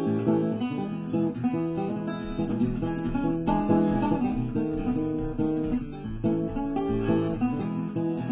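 Metal-bodied resonator guitar playing a blues instrumental passage, a continuous run of plucked notes in a steady rhythm.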